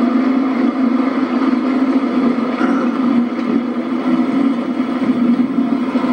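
Motorboat engine running steadily under way, an even drone that does not change.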